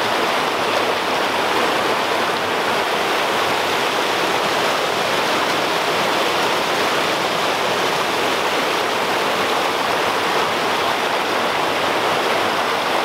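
A small waterfall rushing steadily over rocks into a creek pool, a constant, even noise of falling water.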